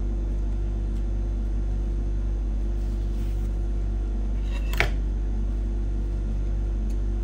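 Faint crinkling of a clear plastic bubble balloon being handled, over a steady low hum, with one sharp click about five seconds in.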